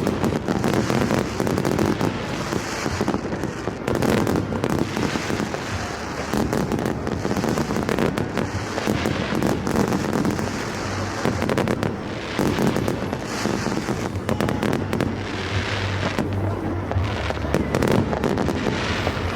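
Fireworks going off in a dense, continuous barrage: many overlapping cracks and bangs with no break, swelling and easing every few seconds.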